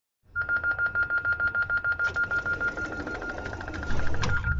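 Door-closing warning on an Alstom Citadis Dualis tram-train: fast electronic beeping, about six beats a second over a steady high tone. A low rumble grows under it from about four seconds in.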